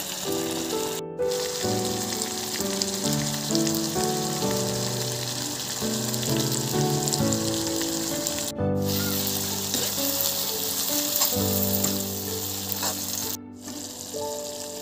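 Potato and greens curry bubbling and sizzling in a pan, with background music of short held melodic notes over it. The sound cuts out for an instant three times.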